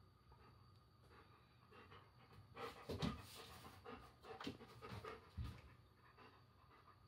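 German Shepherd dog panting faintly in short, uneven bouts.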